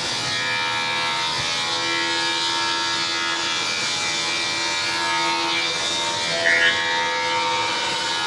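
Straight-line rip saw running and ripping the edge off a hardwood board as it is fed through, a steady cutting noise with a constant machine hum. There is a brief louder moment about six and a half seconds in.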